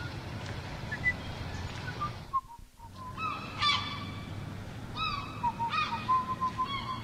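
Gulls giving harsh calls, clustered about three and a half seconds in and again around five to six seconds, over a low steady background. The background drops out briefly just before the calls. Near the end someone whistles a tune in short notes.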